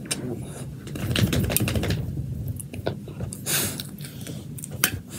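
Rustling and scattered small clicks of hands stroking a dog's fur close to the microphone, with a short hissy burst a little past the middle.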